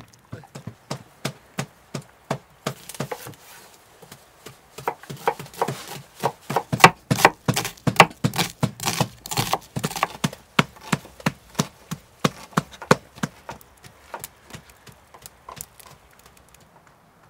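Chef's knife chopping an onion on a wooden cutting board, a fast run of sharp knocks, loudest through the middle. At the start, a dog chewing raw meat with sparser crunching clicks.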